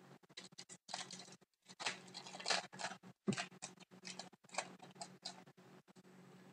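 Cardboard trading cards being handled and slid against one another as a pack is flipped through, in short irregular swishes, with one sharp tap a little past three seconds in.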